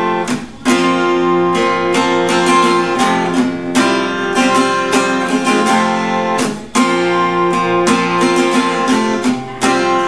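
Seagull Entourage Grand parlor-size steel-string acoustic guitar strummed in open chords around the first fret, ringing fully between strokes, with two short breaks where the chord changes, about half a second in and near seven seconds.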